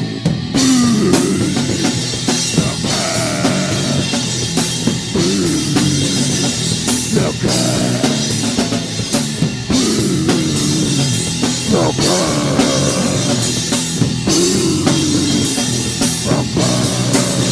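Rock band playing live, a passage without sung words, with the drum kit and cymbals up front under the bass and guitar.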